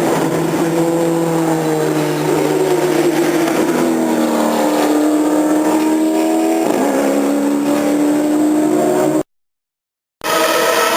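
Formula racing car engine running at high revs, its pitch sagging and climbing with a sudden step midway. The sound breaks off completely for about a second near the end, then resumes.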